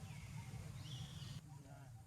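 Two short high-pitched animal calls, the first falling in pitch, over a steady low rumble. The background changes abruptly about a second and a half in.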